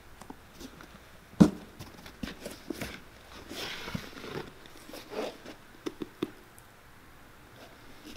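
Handling noise as a leather sole is fitted to a cowboy boot on a wooden workbench: one sharp knock about 1.4 s in, scattered light knocks and clicks, and a rasping scrape a little after the middle as the sole is lifted and shifted against the boot.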